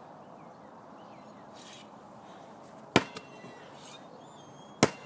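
A basketball hitting hard surfaces: two sharp thuds about two seconds apart, the first followed at once by a smaller knock.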